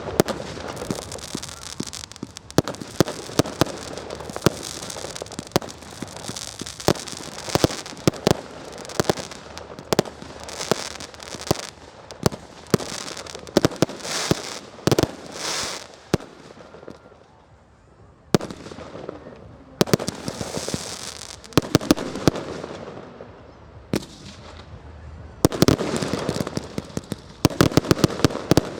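Fireworks display: a rapid run of bangs from bursting shells with crackling between them, easing to a brief lull just past the middle before another dense volley of bangs.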